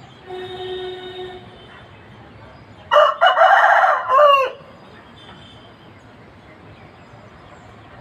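A rooster crowing once, a loud call of about a second and a half that falls in pitch at the end. Before it, a steady, shorter tone of about a second sounds, like a horn.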